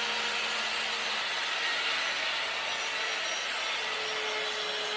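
Handheld electric circular saw running and cutting the angled end of a wooden roof rafter: a steady motor whine under loud blade-through-wood noise, the motor note dipping slightly a little past the middle.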